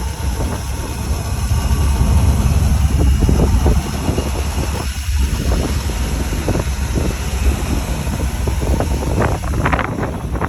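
A vehicle engine idling steadily, with scattered clicks and knocks over it and a cluster of sharper knocks near the end.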